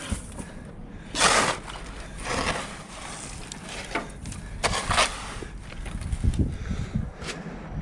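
Wind rumbling on the microphone, with about half a dozen short, irregular scuffs in snow.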